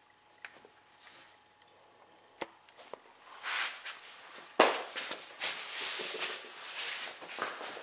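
A small dog scrambling through a fabric play tunnel: irregular rustling of the tunnel's fabric and scuffs and taps of paws, starting about three seconds in after a few faint clicks.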